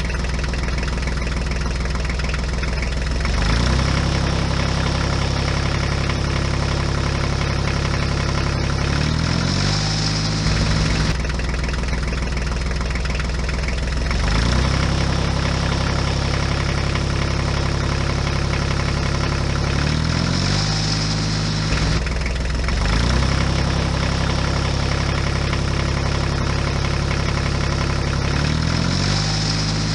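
Tractor engine sound running steadily, its pitch stepping up and down every few seconds, the same pattern coming round about every eleven seconds. It plays over a miniature model tractor pulling a loaded trolley.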